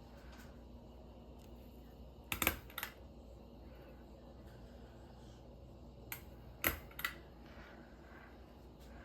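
Hunter Brighton ceiling fan running with a faint steady hum, broken by two quick groups of about three sharp clicks each, a few seconds apart.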